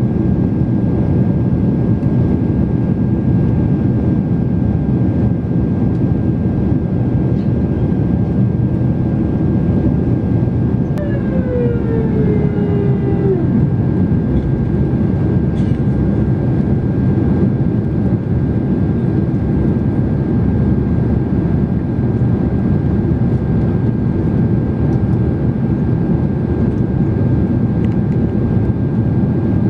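Steady cabin noise of a Boeing 767-300 jet in flight, heard from a window seat over the wing: engine and airflow noise with a constant faint high whine. About eleven seconds in, a short pitched sound glides downward over the noise for about two seconds.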